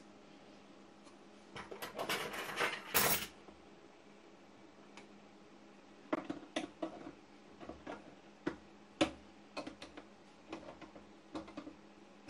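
Small hard parts and tools being handled on a workbench during reassembly of a record player's controls: a burst of light metallic clattering about two seconds in, then scattered single clicks and knocks.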